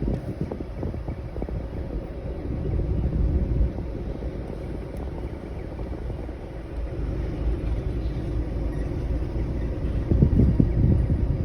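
Low, gusty rumble of air-conditioner airflow blowing across the microphone, swelling louder near the end.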